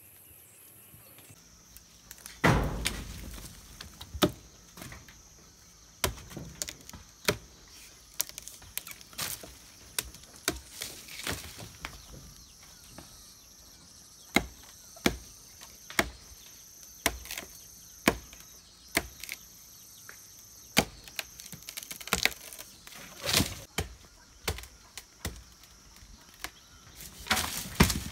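Machete chopping the branches of a moringa (drumstick) tree: an irregular series of sharp blows into the wood, now single, now in quick clusters. The loudest come about two and a half seconds in and near the end.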